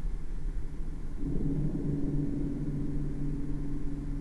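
Low rumbling drone. About a second in, two steady low humming tones come in and hold, like a struck gong left to ring.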